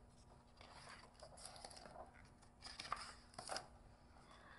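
Faint rustling of a hardcover picture book's paper pages being turned by hand, in a few short rustles around the middle.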